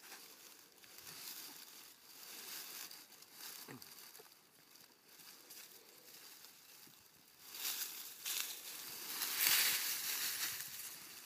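Hands scraping and patting loose soil, then gathering dry fallen leaves, which rustle and crackle more loudly from about two-thirds of the way through.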